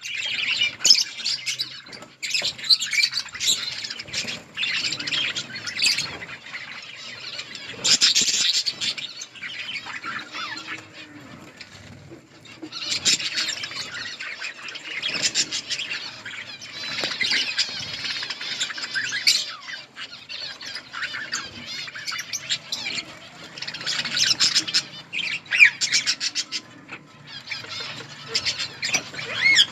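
A flock of budgerigars chattering, with many high chirps and squawks overlapping in waves that swell and die down every few seconds.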